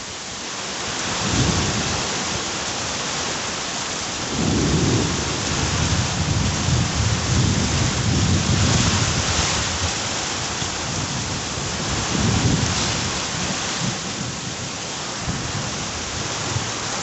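Heavy thunderstorm rain pouring steadily, with low rumbling swells starting about four seconds in and lasting several seconds, and another near twelve seconds in.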